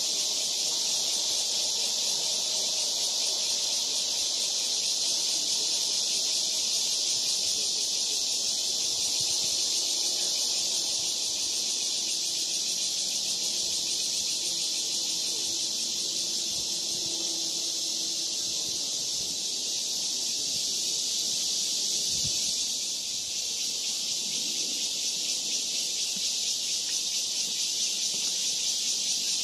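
Dense summer chorus of cicadas, a steady high shrill drone that barely changes, dipping slightly a little past two-thirds of the way through and then pulsing faintly.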